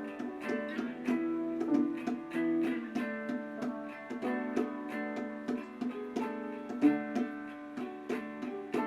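Background music: gently picked acoustic guitar or ukulele, a run of short plucked notes several times a second.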